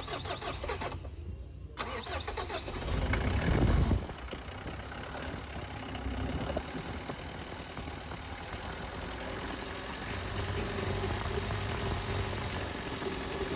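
Mitsubishi 4D56 four-cylinder diesel, with a newly fitted camshaft, being cranked and starting. It catches about two seconds in, runs up loudest a second or two later, then settles to a steady idle.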